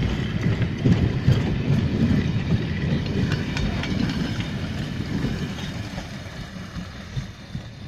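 Freight train wagons rolling past close by: a low rumble of steel wheels on the rails with scattered clacks, growing quieter over the last few seconds.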